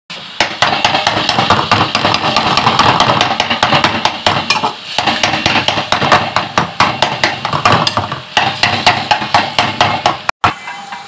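A slotted metal spatula scraping and clicking rapidly against a metal pan as minced chicken is stirred, over a steady sizzle. The sound breaks off for a moment near the end.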